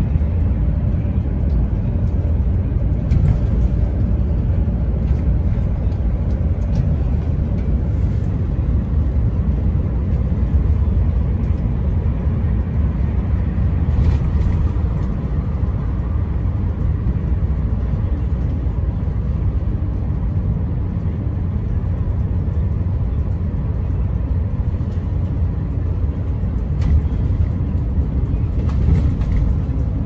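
Steady low rumble of road and engine noise heard from inside a moving car.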